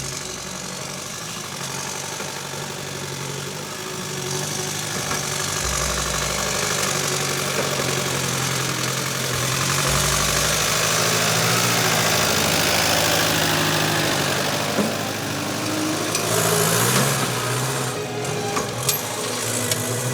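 Off-road 4x4 engine running and revving, growing louder through the middle and easing off again, with a few sharp knocks near the end.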